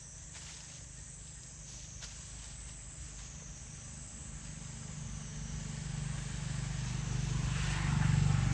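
Low engine hum of a passing motor vehicle, growing louder over the last few seconds as it draws near.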